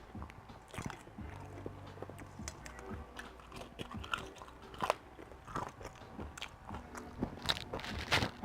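A person chewing and biting food close to the microphone, with repeated crunchy bites, the loudest about five seconds in and a cluster near the end, over faint background music.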